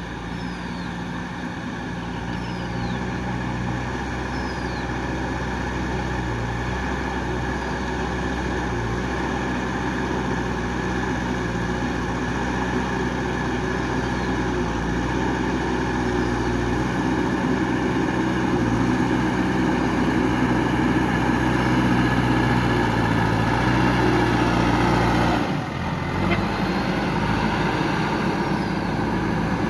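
JCB 3DX backhoe loader's four-cylinder diesel engine running under working load, its pitch shifting slightly and growing steadily louder. About 25 seconds in the sound dips briefly, then comes back.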